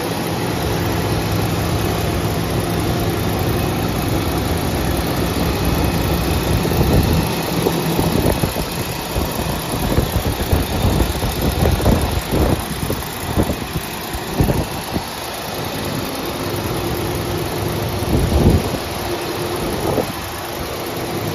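1979 Mercedes-Benz 450SL's 4.5-litre V8 idling steadily shortly after a cold start. Through the middle, and once more near the end, irregular thumps and rumble on the microphone break over the engine sound.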